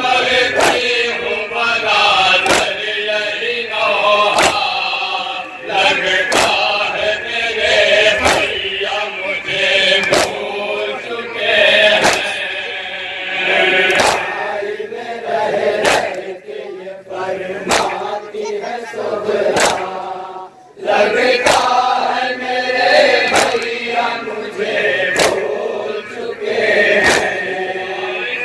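Men's voices chanting a Shia nauha (noha): a lead reciter through a microphone with a group chorus answering. Under it runs a steady rhythm of sharp matam chest-beating slaps, about one a second, keeping time. The voices drop out briefly about twenty seconds in.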